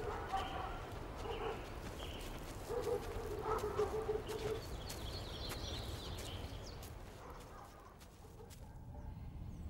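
Hens clucking in a village yard: a string of short calls, with a longer run of clucks about three seconds in, growing quieter near the end.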